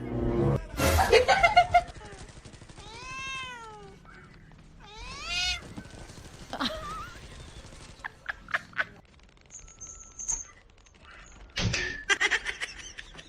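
Domestic cat meowing: a couple of drawn-out meows that rise and fall in pitch, after a loud noisy stretch at the start.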